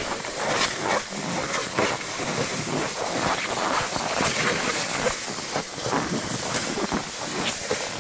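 Footsteps crunching in deep snow at a steady walking pace, with the scraping hiss of a plastic fishing sled dragged over the snow behind.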